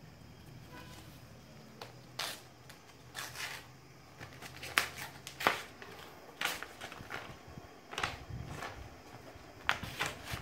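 Paper label crinkling and tearing as hands peel it off a rolled jacquard carpet, heard as a series of short, irregular rustles.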